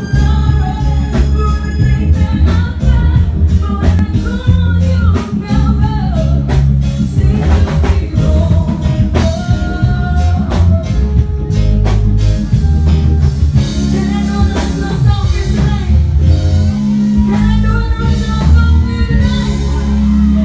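Live band music played over a PA sound system: a singer over drums, guitar and a strong, steady bass line.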